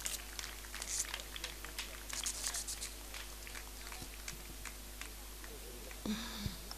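Faint crinkling of shiny gift wrap as a wrapped memento is handled, as scattered soft crackles over a steady electrical hum. A short faint voice comes in about six seconds in.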